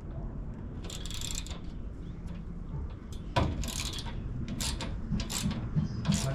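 Hand tools working on metal fittings: a few short mechanical clicks and scrapes, first about a second in and then more often from the middle on, over a low steady hum.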